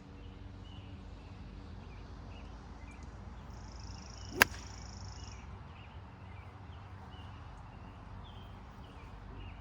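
A single sharp crack of a wooden-shafted hickory golf club striking a gutty golf ball, a little past the middle, over faint bird chirps.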